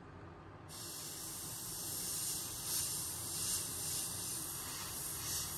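Airbrush spraying paint through a stencil: a steady hiss that starts suddenly just under a second in and swells slightly every so often.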